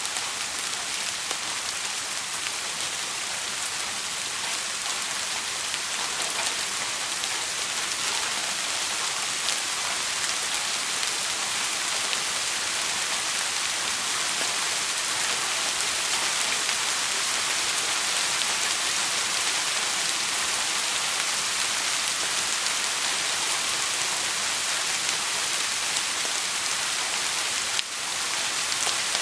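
Steady heavy rain hissing without a break, with a brief dip in loudness near the end.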